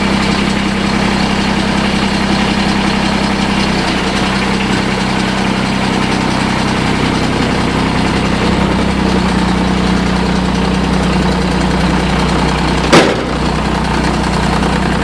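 Kubota D722 three-cylinder diesel running steadily on a TG1860 riding tractor, its pitch shifting slightly a couple of times. A single sharp knock sounds near the end.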